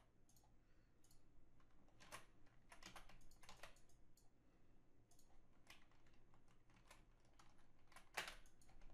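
Faint computer keyboard keystrokes and clicks in short irregular runs, with a cluster about two to four seconds in and a sharper one near the end.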